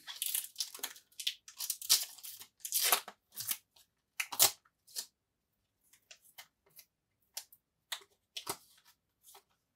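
Foil wrapper of a Topps Star Wars Holocron trading-card pack being torn open by hand: a run of crinkly rips through the first five seconds, then only scattered light crackles as the torn foil is handled.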